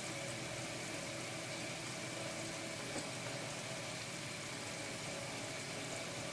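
Batter-coated cauliflower florets deep-frying in hot oil, giving a steady, even sizzle of bubbling oil.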